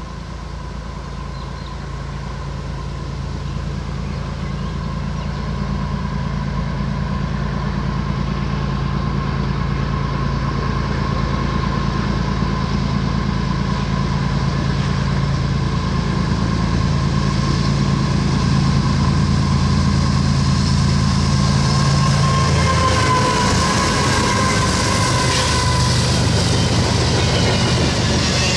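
A diesel train approaches, its locomotive engine drone growing steadily louder. In the last few seconds, wheel-on-rail noise with wavering high squealing tones takes over as the train draws level.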